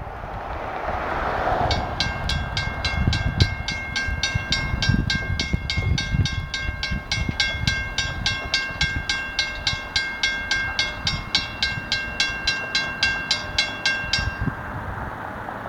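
Railroad grade-crossing warning bell ringing in rapid, even strikes, about three a second, warning of an approaching train while the crossing gates come down. It stops abruptly once the gates are down, a little over a second before the end. A car passes over the crossing just before the bell starts.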